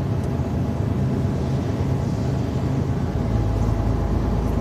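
Steady low drone of a truck's engine and road noise heard from inside the cab while driving.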